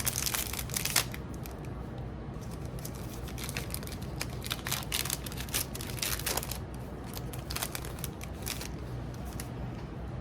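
A trading-card pack wrapper being torn open and crinkled, then cards being handled and slid out, in a run of short crackles and rustles that is busiest in the first second.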